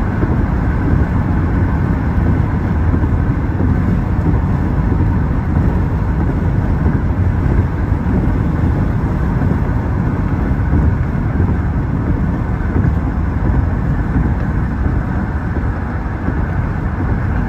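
Steady road noise inside a moving car's cabin at highway speed: tyre noise and engine hum, strongest in the low end.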